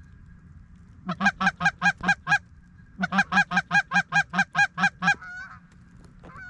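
Canada goose call blown by a hunter in two fast, even runs of clucks, about six a second, the second run longer. Faint goose honks can be heard between the runs.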